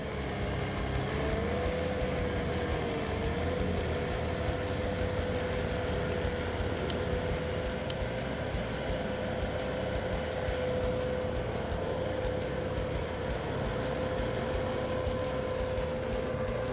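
Vermeer SC30TX stump cutter running under load as its cutter wheel grinds into a tree stump: a steady engine-and-cutter noise with a held whine that rises slightly about a second in, then stays level.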